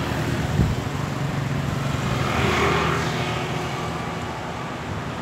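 A vehicle engine humming steadily over wind noise, with a swell of rushing sound about two to three seconds in.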